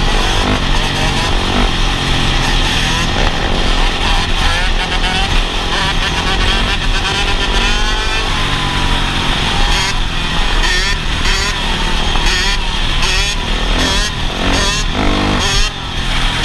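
Dirt-bike engines running at speed and revving up and down in pitch as the riders hold wheelies.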